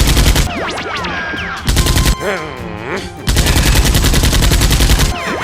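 Rapid automatic gunfire in three bursts: one ending about half a second in, a short one near the two-second mark, and a long one from about three to five seconds.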